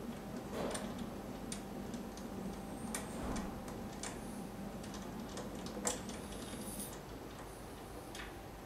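Scattered small clicks and ticks of a hand unscrewing the vent port cap at the base of a portable beauty machine's back panel.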